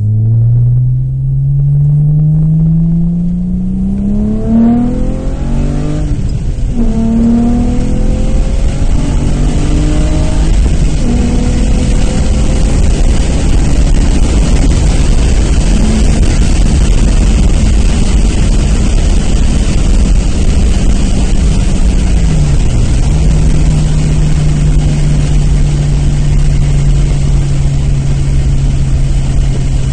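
Nissan Maxima's V6 with aftermarket headers and exhaust accelerating through the gears of its six-speed manual: the engine note climbs and drops back with each upshift over the first dozen seconds. It then holds a steady drone at cruise over road noise, with a brief dip in pitch about two-thirds of the way through.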